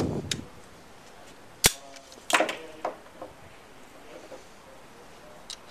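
Sharp metallic clicks from a Makarov P-64 pistol being handled: one loud click about one and a half seconds in, then a quick cluster of clicks with a short metallic ring about half a second later, and a couple of small ticks near the end.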